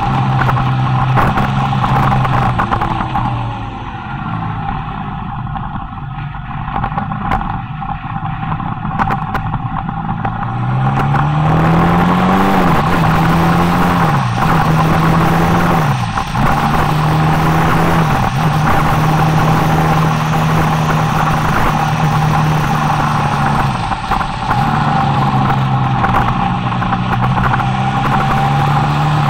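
Motorcycle engine heard from on board while riding downhill. The revs fall and the engine goes quieter for several seconds, then climb again in rising sweeps, dropping sharply a few times as gears change.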